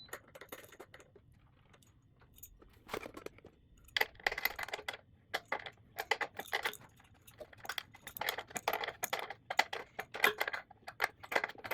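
Irregular metallic clicking and clattering of hand tools and small parts, in short flurries, while a ground cable is being reattached on an electric pallet jack.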